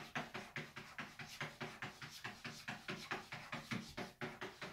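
A cat's paws striking and scrabbling at the smooth wall of a plastic bathtub, over and over, as it 'runs' against the curve: a rapid, even patter of taps, about five a second.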